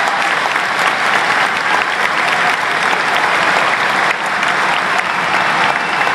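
Large arena crowd applauding steadily, a dense patter of many hands clapping.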